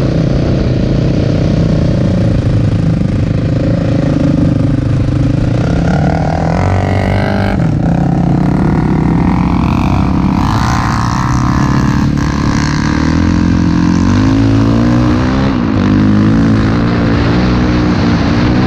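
Quad (ATV) engine running under way, revving up and easing off several times as the rider works the throttle.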